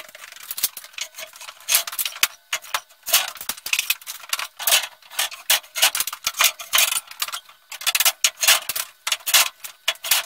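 Wooden furring strips being gathered and handled: dense, irregular clattering with many quick clicks and knocks.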